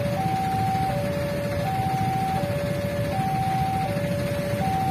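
Railway level-crossing warning alarm sounding: an electronic two-note signal alternating high and low, each note held about three-quarters of a second. It plays over a steady low rumble of waiting traffic.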